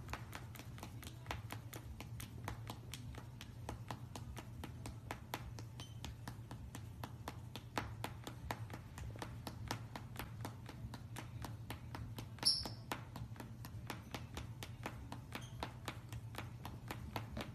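Rapid light tapping on a wooden floor, about four taps a second, from a white-bellied caique hopping about on its claws. There is a steady low hum underneath, and one short high chirp about twelve and a half seconds in.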